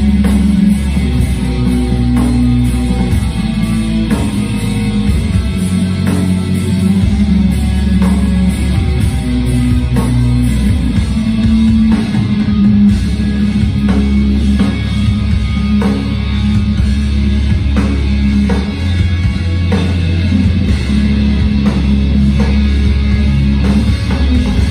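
A live death-doom metal band playing loud, with distorted electric guitars, bass and a drum kit. The sound is bass-heavy and loud, recorded from the audience.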